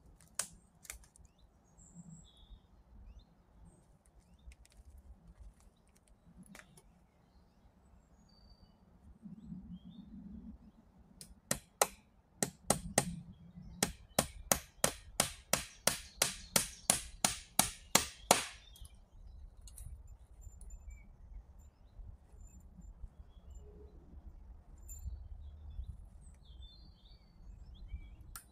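A hand tool striking wood: a few scattered knocks, then about halfway through a quick run of some twenty sharp blows, about three a second, lasting around seven seconds. Faint bird chirps in the background.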